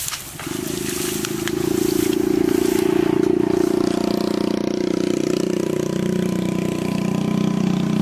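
A small engine starts about half a second in and runs steadily, getting louder over the next two seconds.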